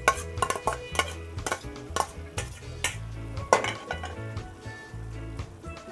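Long metal spoon scraping a saltfish bowl and then stirring a metal cooking pot of stewing string beans, with irregular knocks and scrapes of spoon on metal, several a second, the sharpest about three and a half seconds in.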